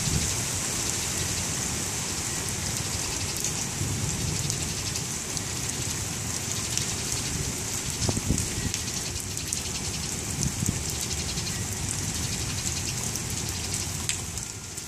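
Steady rain hissing down on grass and a wet concrete patio, with scattered close drop ticks. Low gusts of wind swell and fade a few times.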